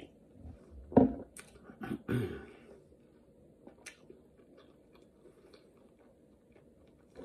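Close-up mouth sounds of drinking from a mug: a loud gulp about a second in, more swallowing sounds around two seconds, then faint lip and tongue clicks.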